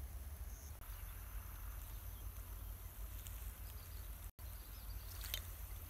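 Outdoor ambience: a steady high insect hum over a low rumble of wind on the microphone. The sound cuts out completely for a moment about four seconds in, and a few faint clicks come near the end.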